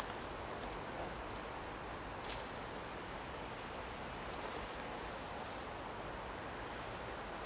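Forest ambience: a steady rushing background noise, with a few faint rustles and clicks and a short high bird chirp about a second in.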